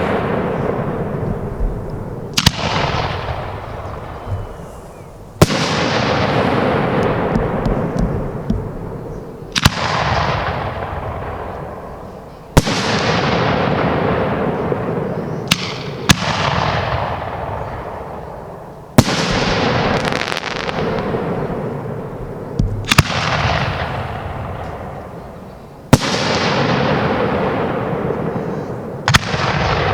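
Aerial fireworks from a display going off one after another: about nine sharp bangs, roughly every three to four seconds, each followed by a loud hiss that fades away.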